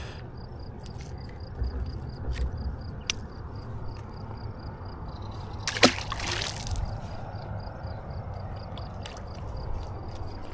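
Water sloshing, with one sharp splash about six seconds in. An insect chirps steadily in the background.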